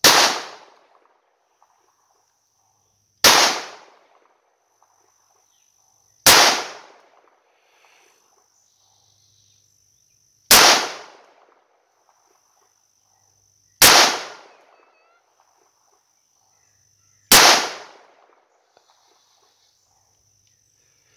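Smith & Wesson M&P 380 Shield EZ pistol firing .380 ACP: six single shots, slow and evenly paced about three to four seconds apart, each cracking sharply and then dying away in a short echo.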